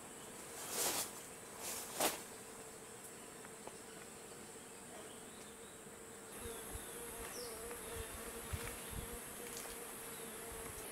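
Lepidotrigona terminata stingless bees buzzing at their nest in a hollow tree trunk: a faint, steady hum, with two brief louder swells in the first two seconds. A high, steady insect trill runs underneath.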